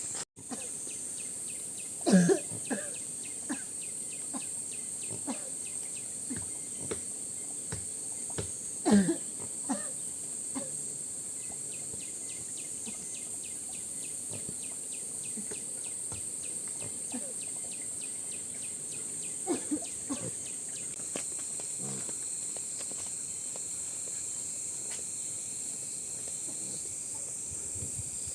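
Steady high-pitched chorus of insects. A few short, louder sounds break in about two, nine and twenty seconds in.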